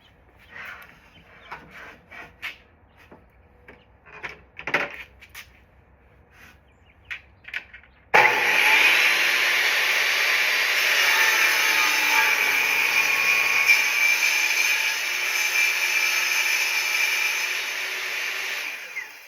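Table saw ripping a rough edge off a wooden board: the blade cuts steadily and loudly for about ten seconds, starting abruptly about eight seconds in and fading near the end. Before it come scattered knocks and clicks as the board is handled.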